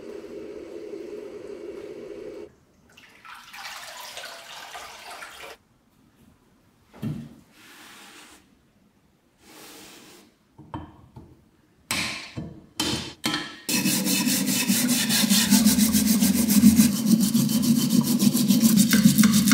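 A sequence of cleaning sounds on rusty cast iron: first a stick stirring a foamy rust-removal bath, then a few short rubbing and wiping strokes. From about two-thirds of the way in comes the loudest part: a wire brush scrubbing fast against the cast iron under running tap water.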